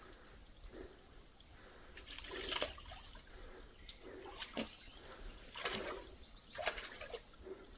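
Water splashing in a shallow mountain stream: about four short splashes over a faint steady trickle.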